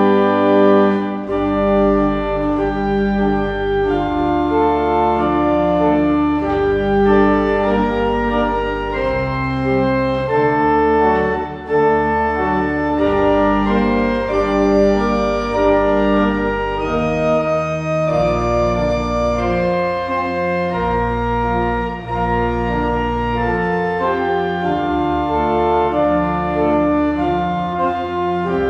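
Organ playing a slow instrumental piece in sustained chords over deep held bass notes, the chords changing every second or two.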